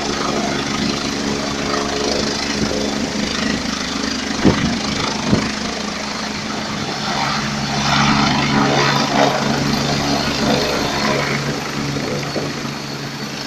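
Helicopter engine and rotor running steadily, the engine's pitch dropping about ten seconds in. Two sharp knocks about four and a half and five and a half seconds in.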